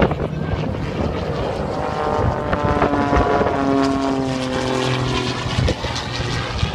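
Propeller-driven aerobatic display plane flying a low pass, its engine and propeller note falling steadily in pitch as it goes by, loudest in the middle of the pass.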